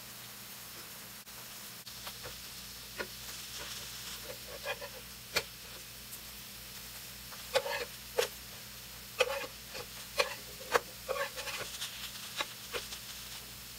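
Metal slotted spatula scraping and tapping on a nonstick frying pan as potato pancakes frying in oil are turned over, over a faint sizzle. Short sharp taps and rough scrapes come in small clusters, a few at first and more often in the second half.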